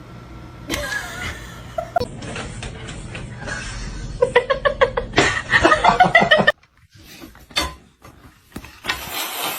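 People laughing in short bursts, loudest about halfway through.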